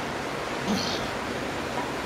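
A man's short voiced exhale, a grunt with a falling pitch, about a second in as he lifts a pair of dumbbells in a bent-over rear-delt raise, over a steady background rush of noise.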